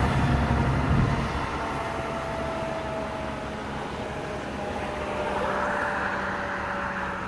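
Federal Signal 2001 electromechanical tornado siren winding down after being shut off at the end of its test: a single faint tone sliding slowly lower in pitch, barely audible. A low rumble fills the first second.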